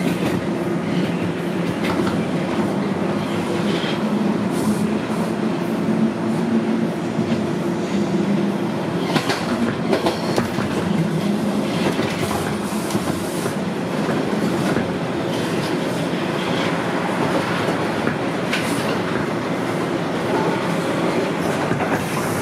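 TTC Toronto Rocket subway train running at speed on surface track, heard from inside the car: a steady rumble and motor hum, with irregular clicks and clacks of the wheels on the rails. Another subway train passes on the next track around the middle.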